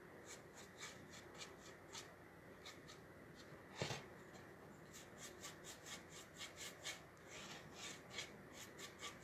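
Paintbrush bristles rubbing in short, quick strokes over the edge of a wooden board, dry-brushing paint on to distress it, about two to three strokes a second. One louder knock about four seconds in.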